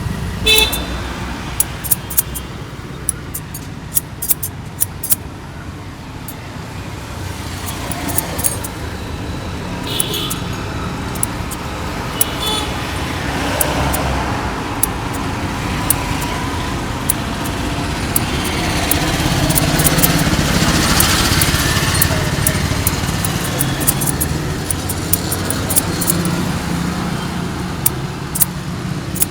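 Barber's scissors snipping in short runs of sharp clicks, over steady road traffic noise.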